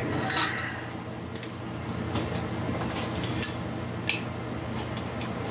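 A few light metallic clinks and taps of metal workshop parts being handled, the first near the start with a brief ring and two more a little after three and four seconds in, over a steady low hum.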